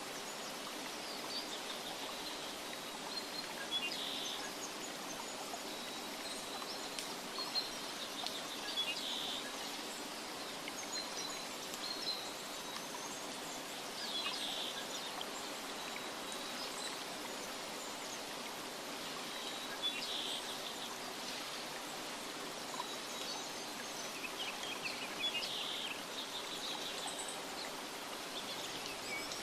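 Nature ambience of a steady rushing hiss with small birds chirping in short clusters every four to six seconds.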